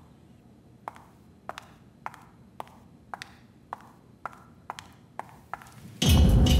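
Footsteps on a hard tiled floor, about two steps a second. About six seconds in, a sudden loud, sustained noise cuts in.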